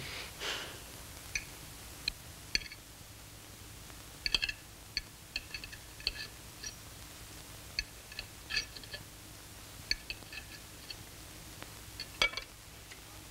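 Steel knife and fork clinking and scraping on a china plate as a steak is cut and eaten: a scatter of short, sharp ringing clinks, bunched about four seconds in and again near the end.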